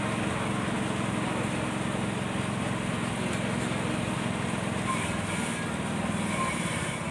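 Busy street-market ambience: a steady din of indistinct voices over a continuous low, engine-like hum.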